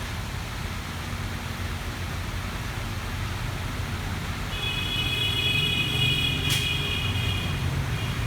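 Motorbike engine idling with a steady low rumble. From about four and a half seconds in, a high steady whine joins it for about three seconds, with a single click partway through.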